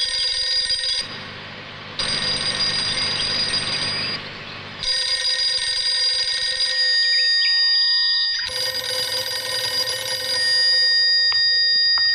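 A telephone ringing in repeated rings about two seconds long, with short breaks between them.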